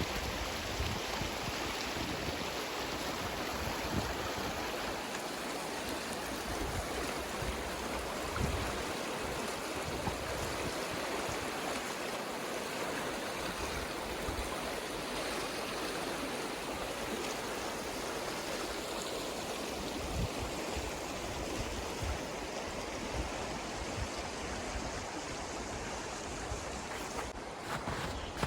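Steady rush of the Bow River's flowing water.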